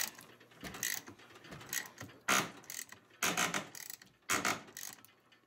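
Hand ratchet wrench clicking in short bursts, about five strokes roughly a second apart, as a bolt on a snowmobile's rear suspension skid rail is turned.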